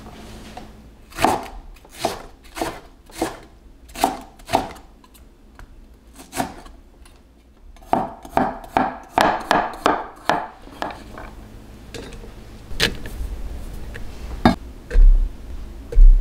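Chef's knife slicing green onion on a wooden cutting board: a handful of separate cuts, then a quicker run of about eight cuts. A few sharper knocks and low thuds follow near the end.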